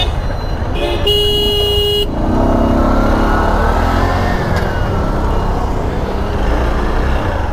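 Motorcycle riding noise in traffic, a steady low rumble of engine and wind. A vehicle horn sounds for about a second near the start, then an engine note rises in pitch and falls back over several seconds.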